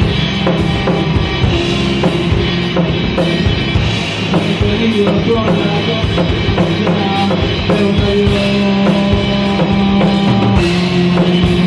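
Rock band playing an instrumental passage: a drum kit keeps a steady beat under sustained chords, with a cymbal crash near the end.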